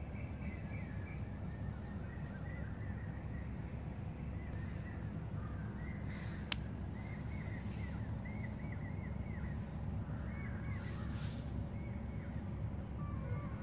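Outdoor birdsong: many small birds chirping in short repeated notes, over a steady low rumble, with one sharp click about six and a half seconds in.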